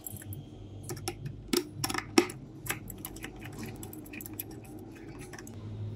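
Hard clicks and knocks of a 3D-printed plastic catapult being set onto an aluminium extrusion rail, its bolt fitting into the rail's slot. The clicks cluster in the first few seconds, with one sharp knock about two seconds in the loudest, and lighter taps after.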